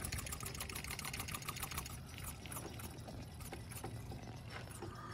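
Old, dirty brake fluid spurting and trickling from an open brake caliper bleeder into a catch container. A quick, even run of small spurts slows to scattered drips about two seconds in.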